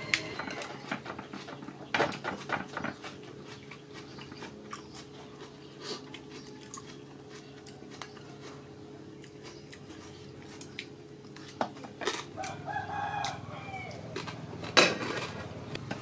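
Metal fork and spoon clicking and scraping against a takeaway food tray and sauce bowl while someone eats. A chicken calls in the background about twelve seconds in.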